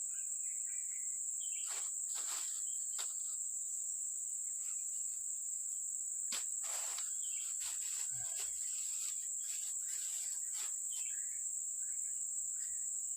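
Steady high-pitched chorus of insects such as crickets, droning without a break, with a few faint clicks and rustles scattered through it.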